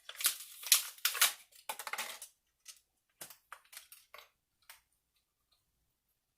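Handling noise: crinkling and rustling for about two seconds, then a few scattered light clicks and taps, then quiet.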